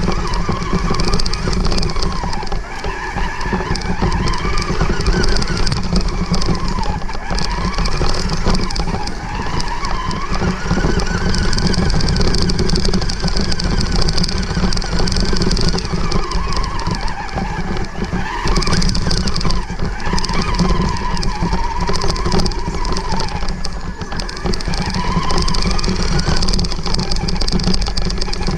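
Traxxas 1/16 Summit RC truck's electric motor and geared drivetrain whining, the pitch rising and falling with the throttle every second or two, over a steady hiss as the truck pushes through long grass, heard from a camera mounted on the truck.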